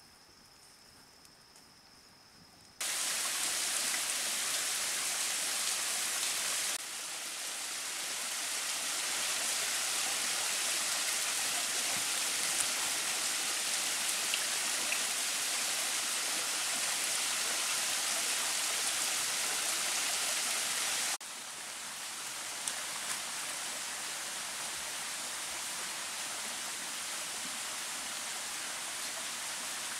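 Faint steady high insect trill at first. About three seconds in, the loud, even rushing of a rocky forest stream cuts in and carries on, its level dropping abruptly twice.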